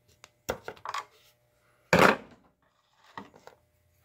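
Scissors and small hard items being handled and set down on a workbench. There are a few clicks and taps about half a second in, a louder clatter about two seconds in, and light taps just after three seconds.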